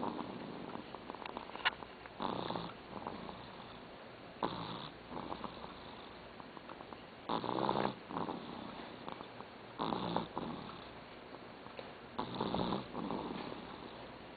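Sleeping pet snoring in slow, regular breaths, about one snore every two to three seconds.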